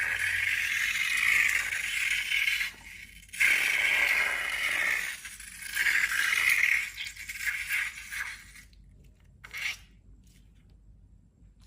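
Scraping and rustling from slime-making materials being handled, in three long stretches broken by short pauses, dying away after about eight seconds.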